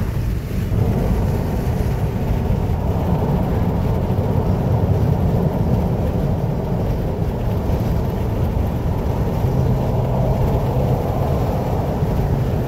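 Steady road and tyre noise inside a car cabin cruising at highway speed, a low, even rumble without sudden changes.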